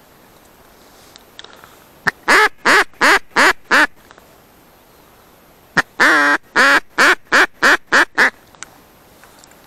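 Loud duck quacking in two runs: five quick quacks about two seconds in, then a long drawn-out quack followed by six quicker ones.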